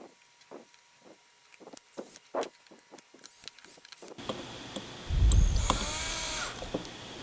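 Small clicks and taps of metal parts being handled, then about five seconds in a power drill/driver runs for about a second and a half, its pitch rising as it spins up, driving a screw into the stage assembly.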